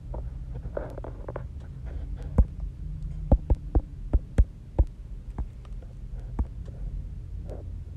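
Steady low hum with a run of about seven sharp clicks, unevenly spaced, around the middle.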